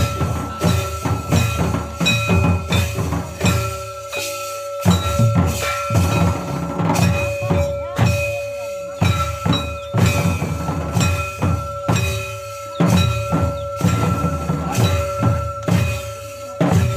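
Santali double-headed barrel hand drums (tumdak') beating a fast, steady rhythm of about three strokes a second, with a held ringing tone sounding over the drumming and a short break in the beat about four seconds in.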